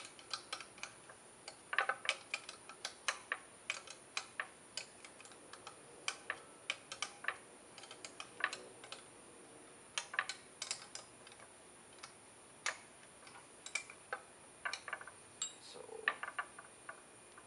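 Irregular light metallic clicks and taps, a few a second, as small parts and a steel pick knock against a Weber 40 DCOE carburettor body while it is being cleaned and reassembled; there is a short lull past the middle.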